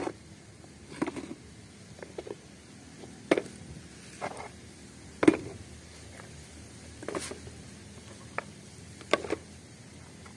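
Mud-covered plastic toy cars being picked up off a plastic tray and set down, giving about eight light knocks and clicks, one every second or two.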